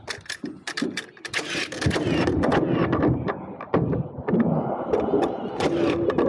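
Construction work on a timber floor: a quick run of sharp knocks and thumps, then denser, continuous clatter with more knocks.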